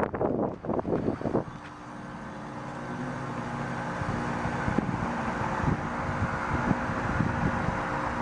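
A 2006 Heil 5-ton heat pump outdoor unit with a Copeland scroll compressor starting up in heat mode. About a second and a half in, a steady machine hum with a low tone sets in and slowly grows louder as the unit comes up to speed.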